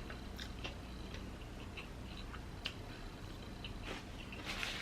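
Faint, sparse mouth clicks and smacks of chewing food close to the microphone, with a short louder noisy rustle near the end.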